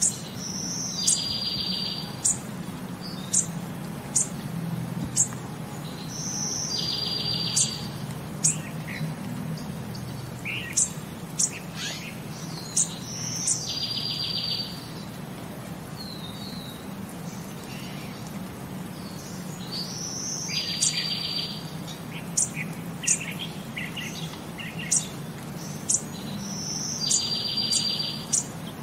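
Birds chirping and calling over a low steady hum. The same pattern, a short high note followed by a buzzy trilled call lasting under a second, comes back about every six and a half seconds among scattered sharp chirps.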